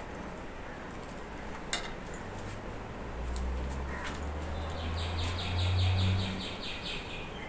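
A small bird twittering in a quick run of high, rapidly repeated chirps from about the middle to near the end, over a low rumble that swells and fades. Two sharp clicks near the start and a couple of seconds in, from a steel ladle knocking the pan.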